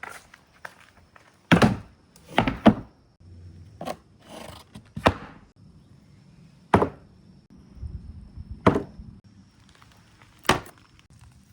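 Glass marbles running through a marble run, knocking and clacking irregularly against the track pieces, with sharp knocks about every one to two seconds and softer rattling between them.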